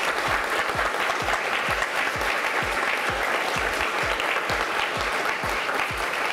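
Audience applauding steadily at the end of a talk, over music with a steady thumping beat.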